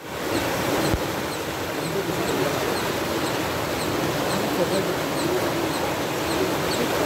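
Muddy floodwater rushing and churning down a flooded channel in a steady wash of turbulent water. A faint high chirp repeats about twice a second over it.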